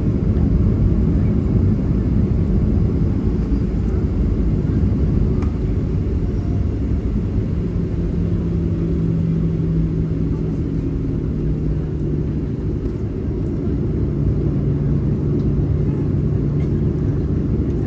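Steady low rumble of a jet airliner heard from inside the passenger cabin: engine and airflow noise. A steady low hum comes in partway through and returns later.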